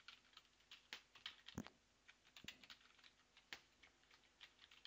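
Faint typing on a computer keyboard: irregular key clicks.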